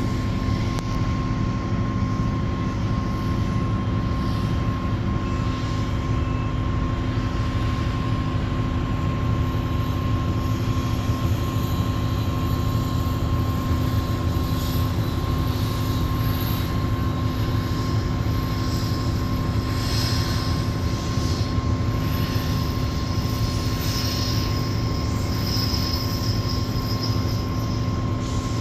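Doosan 480 excavator's diesel engine running steadily, with a heavy rumble and a constant whine over it.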